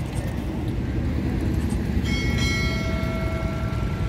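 A low steady rumble, with a clear ringing tone like a bell coming in about halfway through and holding for about two seconds.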